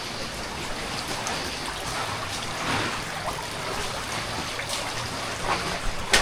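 Water trickling steadily in a flooded cave, with a few faint knocks.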